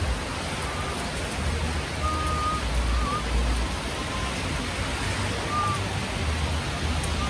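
Steady rain falling, an even hiss, with low rumbling that comes and goes and a few faint short whistles.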